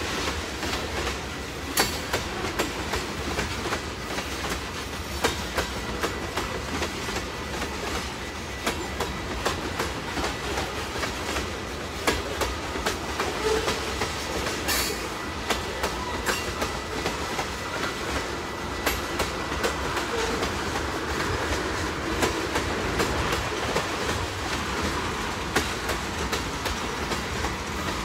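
Freight train of tank cars rolling past: a steady rumble, with the wheels clicking over rail joints again and again.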